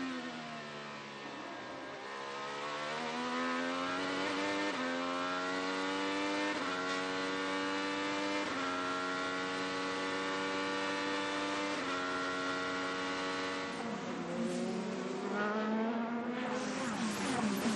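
IndyCar engine running. Its pitch falls at first, then climbs and holds fairly steady with several abrupt steps, as at gear changes, before dropping and rising again near the end.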